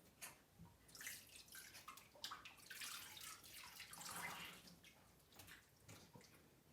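Faint splashing and dripping of water in a baby's bathtub as the infant moves in it, with soft splashes coming irregularly every half second or so.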